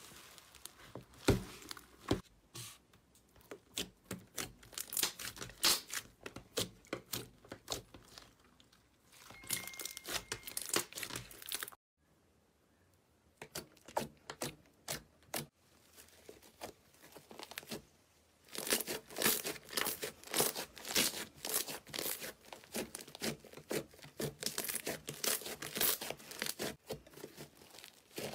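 Crunchy slime being pressed and squeezed by hand, crackling and popping in dense runs of sharp clicks. The crackling cuts off abruptly about twelve seconds in, comes back as scattered pops, and thickens again from about eighteen seconds.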